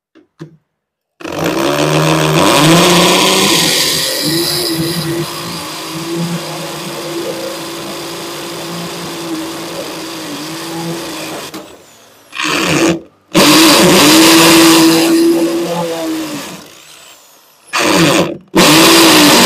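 Makita M8104B 430 W corded hammer drill boring into a concrete block. It starts about a second in and runs for about ten seconds, then is stopped and restarted in several shorter runs, with a steady motor whine under the grinding of the bit.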